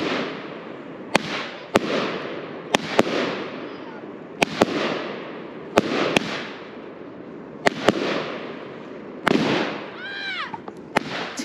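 Consumer aerial fireworks launching and bursting. About a dozen sharp bangs come every second or two, often two close together, and each is followed by a fading hiss.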